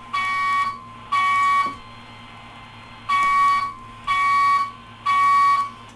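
Wheelock DV200 voice evacuation system sounding its evacuation alarm tone through a fire alarm speaker. Loud half-second tone pulses run in the temporal-three pattern: two pulses, a pause, then three more.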